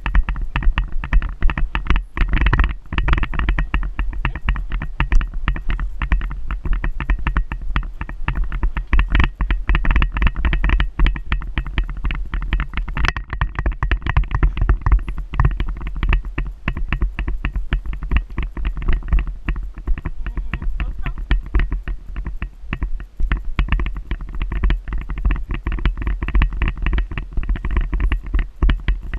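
Wind buffeting the microphone of a camera carried on horseback, with a rapid, uneven patter of knocks from an Icelandic horse's hoofbeats on a sandy trail and the jostling of the rider and camera.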